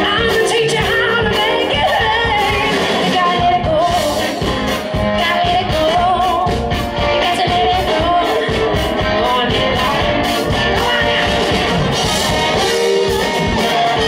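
Live rock and soul band playing loud: a woman sings lead over electric guitar, drums and a horn section of saxophone and trumpet.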